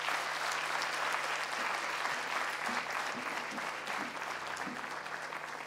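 Audience applauding: a roomful of people clapping steadily at the end of a speech.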